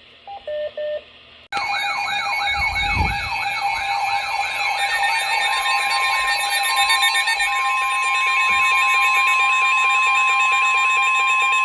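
Emergency alert tones announcing a severe thunderstorm warning: a few short beeps, then several alert signals sounding together, starting abruptly about a second and a half in. A fast wavering, siren-like tone plays over steady tones, and another steady tone joins about four seconds later.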